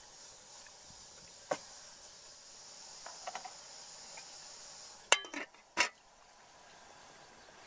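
A metal ladle tapping lightly against an aluminium cooking pot of fish soup, then the aluminium lid clanked down onto the pot about five seconds in: a few sharp metallic clanks with a short ring. A faint steady high hiss underneath stops as the lid goes on.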